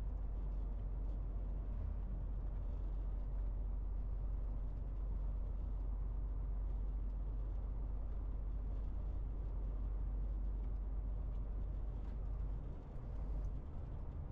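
Steady low drone of a MAN TGX 18.470 truck under way, heard from inside the cab: the 12.4-litre straight-six diesel and road rumble. The rumble dips briefly near the end and then comes back.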